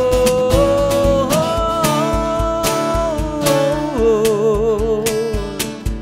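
Acoustic worship song: a man's voice holding long sung notes with vibrato over strummed acoustic guitars and a steady cajón beat, the last beats falling near the end.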